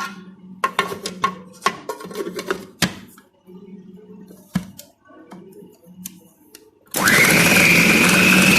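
Clicks and knocks from handling an electric food chopper. About seven seconds in, its motor starts with a short rising whine and runs loudly and steadily, chopping chicken mince with bread and onion.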